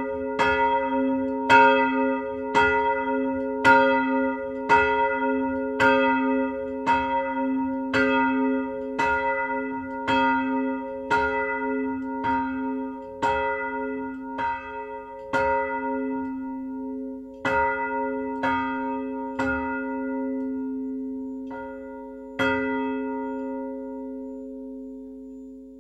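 Motor-swung cast-steel church bells from KID Jesenice (1922) ringing, their clappers striking about twice a second. The strokes thin out and stop a little over halfway through as the bells swing down, leaving the ring to die away.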